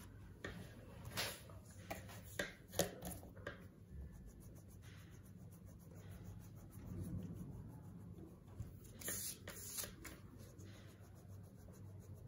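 Faint scratchy strokes of a colouring pen on paper, coming in irregular runs, with a few louder strokes about a second in, around three seconds in and near ten seconds in.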